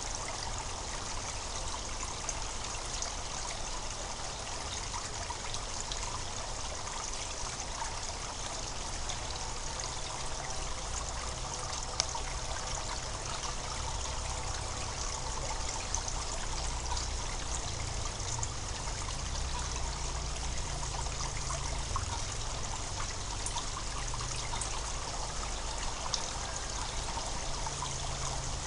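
Spring water running and gurgling steadily, with a continuous trickling and many small splashes over a low rumble.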